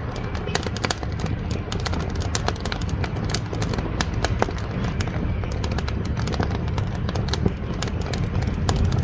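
Wood fire burning in a wood-fired cookstove: irregular sharp crackles and pops, several a second, over a steady low rumble.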